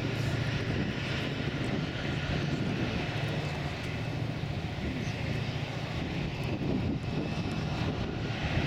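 A towboat's diesel engines running hard as it pushes a heavy barge tow upstream: a steady low drone, the engines laboring under the load.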